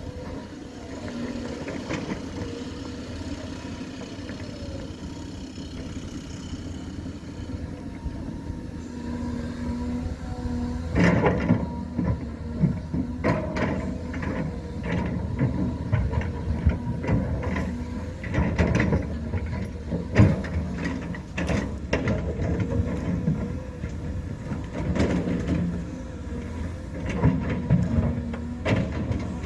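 Diesel earthmoving machinery running steadily. From about eleven seconds in it gives a string of irregular metal clanks and knocks.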